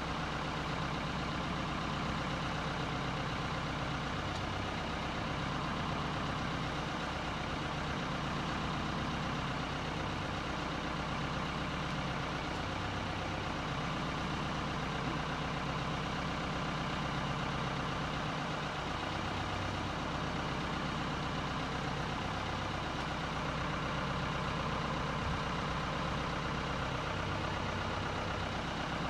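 RNLI lifeboat launch tractor's engine idling steadily, an even low running sound with no change in speed.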